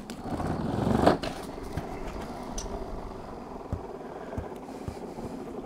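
Motor of a homemade ball-launcher spinning up its pair of rubber wheels, rising to a peak about a second in, then running steadily with a rattle and a few sharp knocks.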